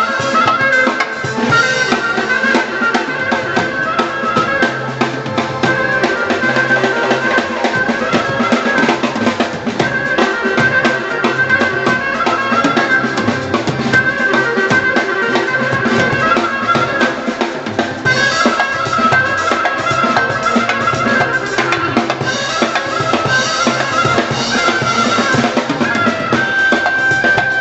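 Drum kit played in a steady fast groove, bass drum and Meitor cymbals included, under a sustained keyboard melody.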